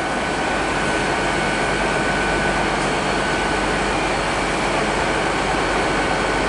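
Diesel engines of a Class 150 Sprinter diesel multiple unit running steadily while it stands at the platform: a dense, even drone with a thin steady high whine over it.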